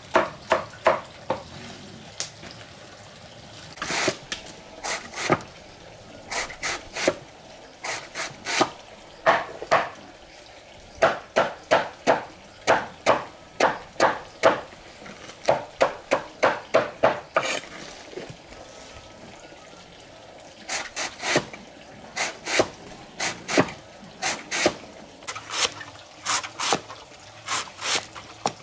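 Knife chopping through banana tree stem against wood: short, sharp chops in quick runs of about two a second, broken by brief pauses.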